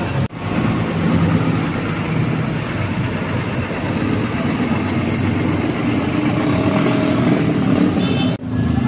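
A large tour bus's engine running as the bus drives past, with steady road and traffic noise. The sound drops out briefly just after the start and again near the end.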